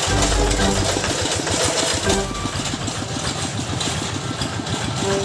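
Single-cylinder diesel engine of a Quick two-wheel hand tractor running with a steady, evenly repeating beat.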